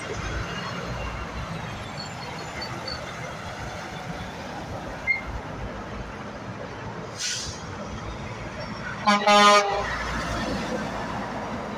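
Semi-truck traffic running past, with a short hiss about seven seconds in. Just past nine seconds, a brief single-tone truck horn blast, the loudest sound, comes as a yellow Kenworth tractor pulls out close by.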